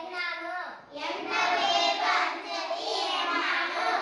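A child's voice reads out a line, then from about a second in a group of children chant it back together in a sing-song classroom recitation.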